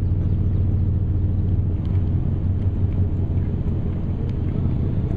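Steady low rumble of an engine running, even in level throughout, with a few faint light clicks.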